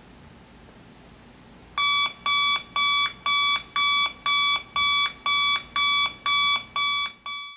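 Sony clock radio's alarm going off about two seconds in: loud electronic beeps, one steady high tone repeating about twice a second, until it cuts off at the very end.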